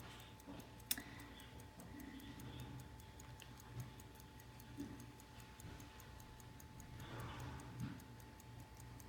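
Hampden 23-jewel pocket watch ticking fast and faint, about five ticks a second, with one sharper click about a second in.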